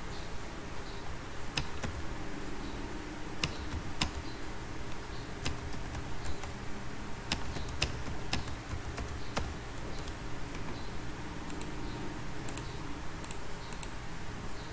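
Scattered clicks of computer keys and a mouse, single strokes spaced irregularly rather than fast typing, with a few lighter high ticks near the end, over a steady background hiss.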